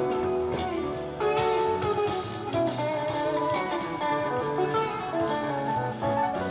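Live rock band in an instrumental jam: electric guitar playing a run of lead notes over bass guitar and drums.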